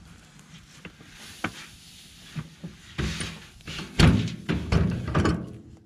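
Wheelbarrow being tipped up to dump a load of old hay and straw: a run of thunks and rustling starting about three seconds in, loudest about four seconds in.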